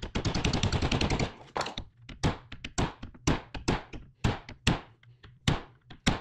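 Hammer blows on metal, tapping small bearings into the brake rod of the pedal linkage. A rapid run of strikes lasts about a second, then single sharp knocks follow about three a second.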